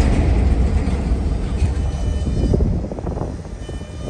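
Diesel locomotives under power, a low engine rumble that is loudest at first and eases off about three seconds in as the container cars roll by. A few faint high squeals come partway through.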